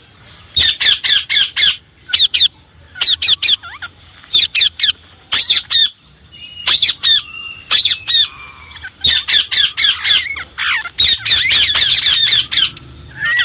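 Indian ringneck parrot squawking in quick bursts of several shrill calls each, with short pauses between them and a longer unbroken run near the end.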